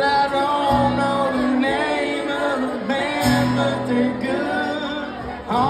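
Live country band playing: acoustic guitars with a fiddle carrying a melody line.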